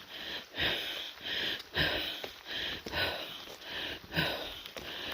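Footsteps on a wet forest trail, about two a second, each a soft scuffing crunch with a dull thud underfoot, mixed with rustling.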